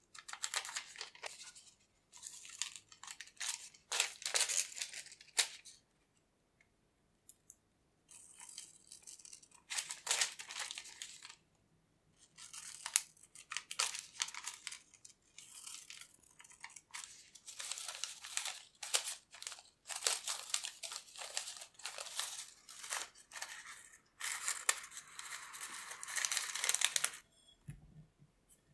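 Scissors snipping slits around the edge of a circle of baking paper: runs of quick, crisp cuts with short pauses between them.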